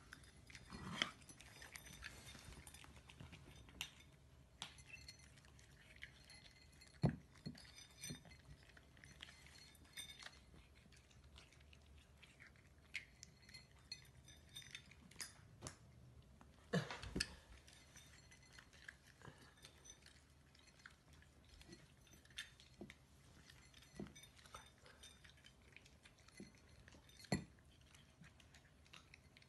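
Cats eating dry kibble from raised ceramic bowls: faint, scattered crunching, with small clinks of kibble and teeth against the bowls and a few sharper knocks.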